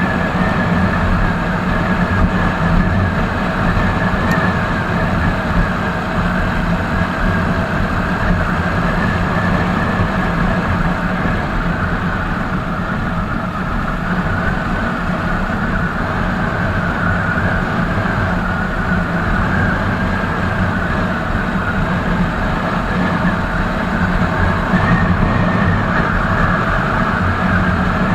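Royal Enfield Hunter 350's single-cylinder engine and exhaust running steadily at highway cruising speed. The revs ease a little midway and pick up again near the end.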